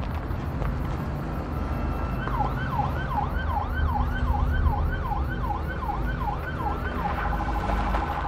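Police car siren in a fast rising-and-falling wail, about two cycles a second, starting about two seconds in and changing to a steady tone near the end, over a low rumble.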